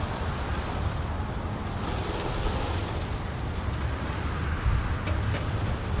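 Strong, gusty Santa Ana wind rushing through a pine tree's needles, with heavy wind buffeting on the microphone; a gust builds near the end.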